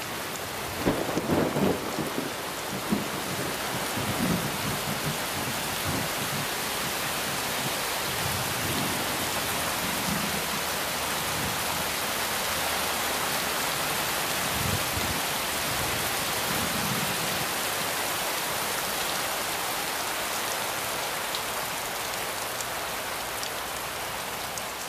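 Heavy rain falling steadily in a summer thunderstorm, with low rumbles of thunder, most of them in the first few seconds and a few more around the middle.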